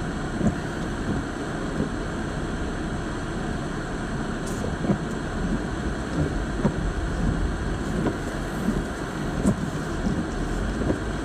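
Steady low rumble and hiss inside a Land Rover LR4's cabin with its engine running, with a few faint scattered ticks.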